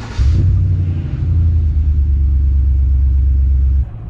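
Pickup truck engine running with a loud, deep, steady rumble, heard close to the vehicle; it starts abruptly just after the start and cuts off suddenly near the end.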